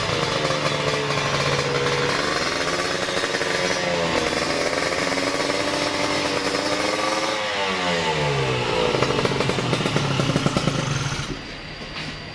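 Yamaha F1ZR two-stroke single-cylinder engine, built to a 116 cc spec, revving: its pitch holds, rises and falls several times, sweeps down about seven seconds in and climbs again, then the engine sound drops away sharply about eleven seconds in.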